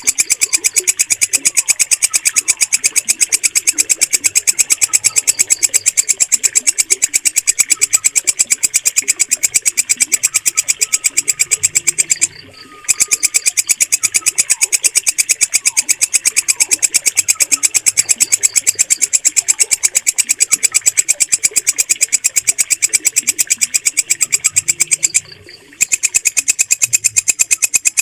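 Walang kecek, a green bush cricket, stridulating: a loud, shrill, very fast and steady train of ticks. It stops for a moment twice, about halfway through and again near the end.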